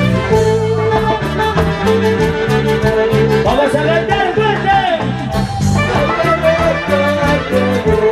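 Andean orquesta playing an instrumental dance passage: sustained melody instruments over a steady bass line and a regular percussion beat.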